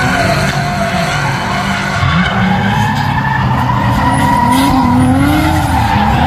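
Two drift cars sliding in tandem, their engines revving up and down at high rpm over the hiss and squeal of spinning tyres.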